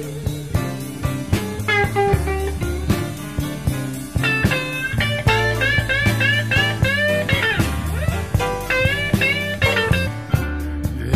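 Chicago blues band playing an instrumental break with no vocals: electric guitar over bass and drums. Through the middle of the break the guitar plays runs of quickly repeated bent notes.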